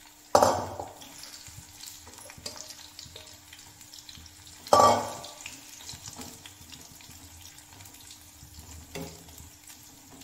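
Batter-coated cauliflower florets deep-frying in hot oil in a kadhai, with steady crackling and spitting. Two loud sudden flares of sizzling, about half a second in and near five seconds, fade within half a second as more pieces go into the oil. A smaller flare follows near the end.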